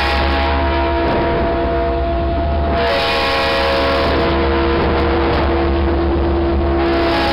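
Norfolk Southern diesel freight locomotives approaching and passing close by, their horn sounding a steady held chord. About three seconds in, the roar of the engines and wheels grows louder as the lead unit draws near, with a low wind rumble on the microphone.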